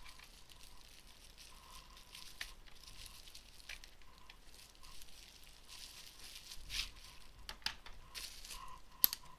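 Faint handling sounds on a workbench: scattered small clicks and light rustles, with one sharper click near the end.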